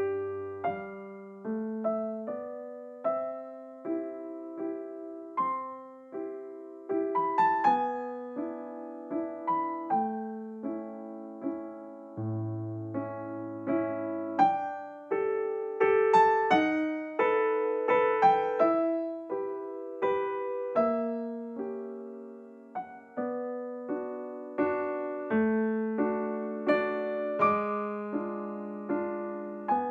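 Background piano music: a slow melody of single struck notes, each fading away, over a few held bass notes.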